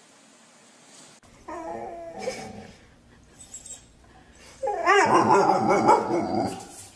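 A dog whining and yipping in two spells: a short one about a second and a half in, and a louder, longer one from about four and a half seconds.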